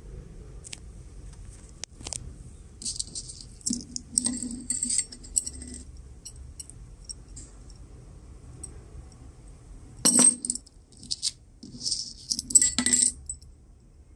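Metal ball chains and angel-wing car charms clinking and jingling as they are handled, in two bouts of light metallic clinks, the second one louder.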